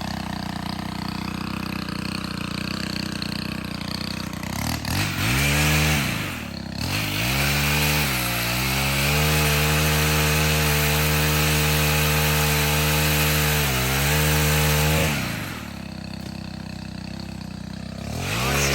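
Stihl HT 131 pole saw's small 4-MIX engine running steadily at idle, then revved to full throttle about five seconds in. It is held high for about ten seconds with a few brief dips in pitch, then drops back to idle and revs again near the end.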